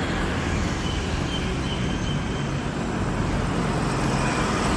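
Steady road-vehicle noise: a low, even engine hum with traffic sound around it.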